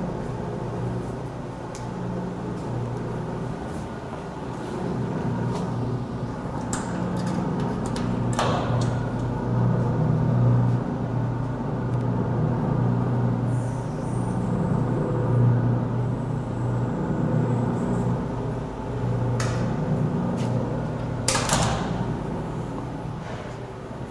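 Electric gearmotor of a stainless steel ribbon blender driving its slow ribbon agitator, running empty with a steady hum. A brief noise breaks in about a third of the way through and again near the end.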